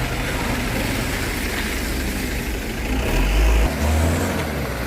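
Heavy truck's diesel engine running, with a louder, deeper rumble from about three seconds in.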